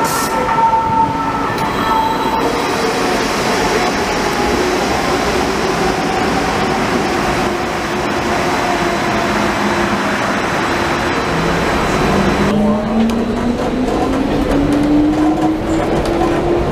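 Danhai light rail tram pulling into a station, its whine sliding down in pitch as it slows. About three quarters of the way through, the sound changes to inside the tram car, where the whine climbs steadily in pitch as the tram pulls away.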